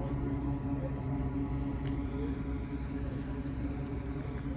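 Steady low drone of a boat engine running at a constant speed, an even hum that holds its pitch.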